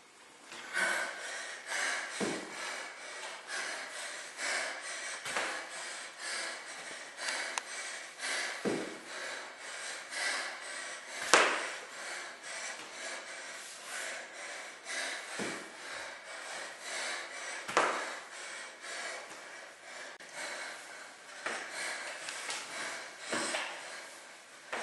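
A woman breathing hard in quick, repeated puffs during exercise, with a heavier thud every few seconds.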